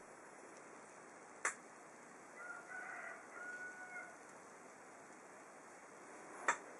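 Faint, distant rooster crowing about two and a half seconds in, between two soft clicks of plastic toy pieces being handled.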